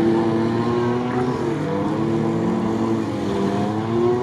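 Off-road 4x4's engine working under load as the vehicle wades through deep water, its revs dipping twice and climbing again near the end.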